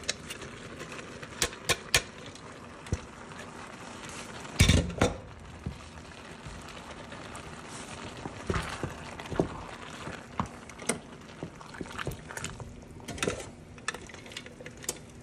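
Scattered knocks, taps and scrapes of a plastic food-processor bowl and a wooden spoon against a steel pot as shredded cheese is tipped into simmering chili mac and stirred, over a soft steady hiss from the simmering pot. The two loudest knocks come about five seconds in.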